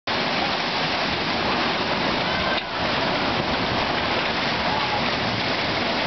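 Steady rush of pumped water churning through a log flume ride's water channel.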